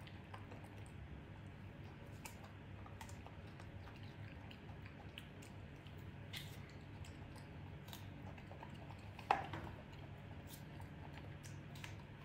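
A macaque eating soft fruit, with faint chewing and scattered small wet clicks of its mouth. One brief louder sound comes about nine seconds in, over a steady low hum.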